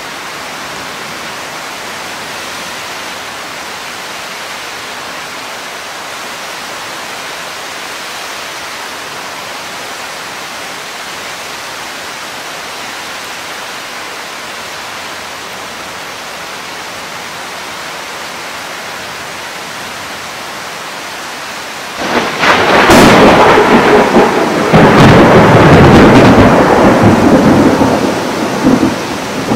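Steady hiss of heavy rain, then about 22 seconds in a loud, close thunderclap: sharp cracks followed by rolling thunder for about six seconds, loud enough to distort the camera's microphone before it eases off.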